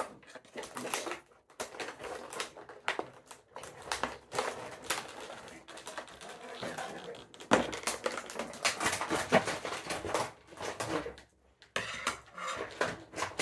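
Cardboard figure box being ripped open and the plastic packaging inside handled and pulled apart: an irregular run of crackles, rustles and sharp clicks, with two short lulls.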